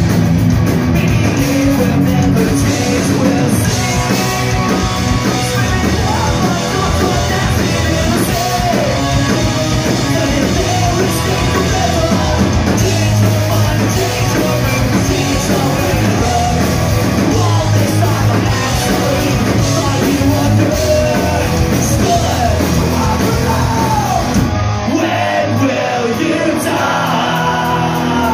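Punk rock band playing live: shouted and sung vocals over distorted electric guitars, bass and drums, heard from the crowd. About three seconds before the end, the bass and drums drop away and the guitars carry on alone before the full band crashes back in.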